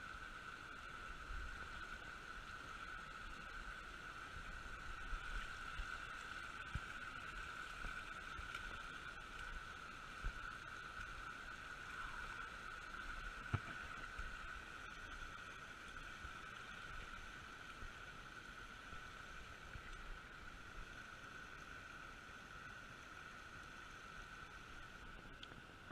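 Quiet, steady outdoor ambience by a creek: a constant hiss of moving water with low wind rumble on the microphone, and a couple of light clicks about ten and thirteen seconds in.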